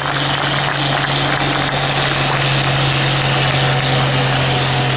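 Dodge Power Wagon truck engine running steadily under load as it drags a weight-transfer sled in a truck pull, holding an even pitch with no revving up or down.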